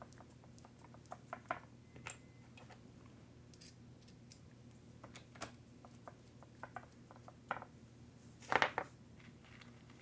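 Scattered small clicks and taps of small parts and tools being handled during RC truck repair, with a brief louder rattle of handling about eight and a half seconds in.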